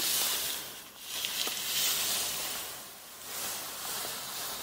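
A steady hissing, rustling noise that swells and fades three times, with a few faint ticks.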